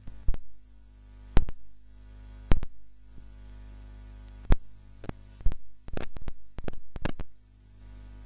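Loud, irregular pops and knocks through the sound system over a steady electrical mains hum: about a dozen, coming closer together in the second half.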